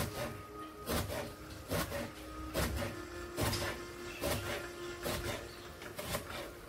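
Kitchen knife cutting through eggplant and striking a wooden cutting board, a sharp knock about once a second, nine times.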